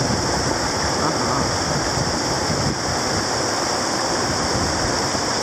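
Swollen, muddy creek in flood: the fast current rushing and churning along its banks in a steady, unbroken noise.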